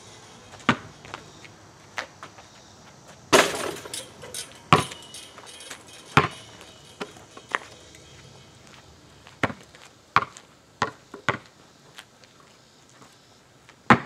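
Basketball bouncing on an asphalt driveway: single sharp bounces at uneven spacing, about a dozen of them. About three seconds in comes one louder hit with a short ringing tail.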